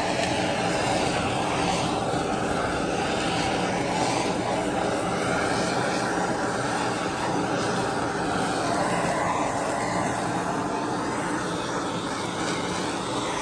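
Handheld propane torch burning with a steady hiss as its flame sears the outside of a beef roast in a cast-iron skillet.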